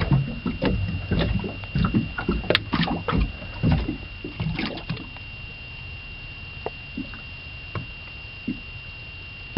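Irregular knocks, bumps and clicks of handling on a small fishing boat, dense for the first half and then only a few scattered ticks, with low water slapping under the hull and a faint steady high tone throughout.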